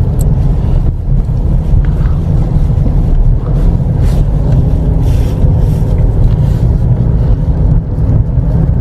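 Car driving along a street, heard from inside the cabin: a steady, loud low rumble of road and engine noise.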